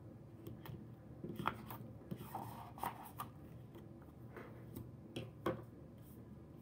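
Paper worksheet and laminated mats being handled on a tabletop: a short sliding rustle a little past two seconds in, among a scatter of light taps and clicks.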